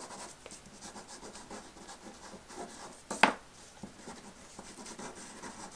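Red Conté crayon, a hard pastel stick, scribbled in small circles on newsprint: a faint dry scratching and rubbing of pastel on paper. One brief louder sound comes a little past three seconds in.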